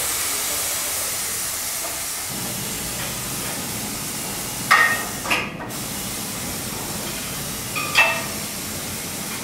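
Compressed air hissing steadily in a pneumatic lifting device's air supply after the air hose is connected. A low hum joins about two seconds in, with short clinks around five seconds in and again near eight seconds.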